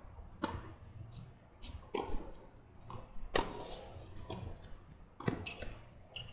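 Tennis racket strikes on the ball in a doubles rally: a serve about half a second in, then sharp hits every one and a half to two seconds, with fainter knocks between them.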